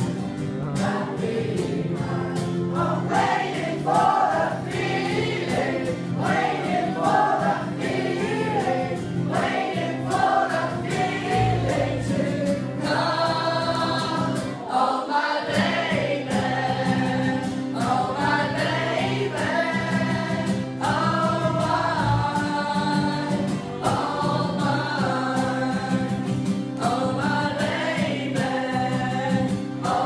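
Live group singing: many young voices sing a song together with acoustic guitar accompaniment and a steady beat.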